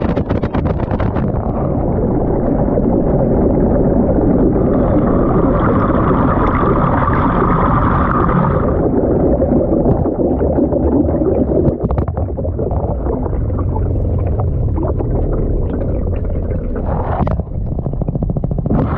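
Water sloshing and churning in a washing machine drum, heard from inside the drum: a muffled, continuous low rumble, with a brighter gurgling band from about a quarter to halfway through.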